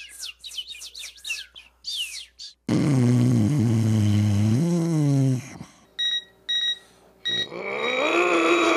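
Birds chirping with quick falling calls, then a long low buzzing drone that rises in pitch before cutting off, then two short electronic beeps, then another pitched sound that rises and holds near the end.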